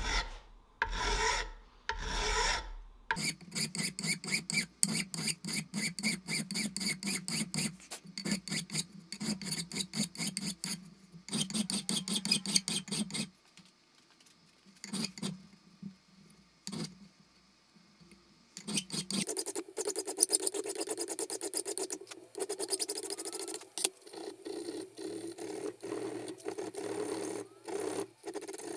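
Hand filing: a file scraped back and forth in quick, rapid strokes. There is a lull with only a few strokes about halfway through, then the scraping resumes with a changed, brighter tone.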